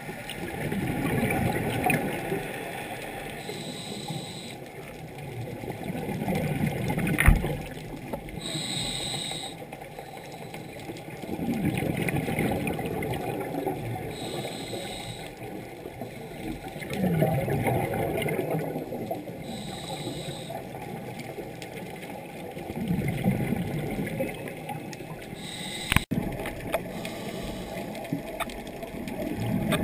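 A scuba diver breathing through a regulator underwater, in a slow steady cycle about every five to six seconds: a short hiss on each inhale, then a longer bubbling rumble of exhaled air. A single sharp click about seven seconds in.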